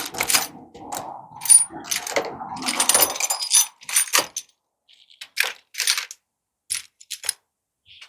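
Metal clinking and rattling as hand tools work on a washing machine's bolts and sheet-metal parts during dismantling. The clinks are dense for the first three or four seconds, then fall off to a few scattered single clicks.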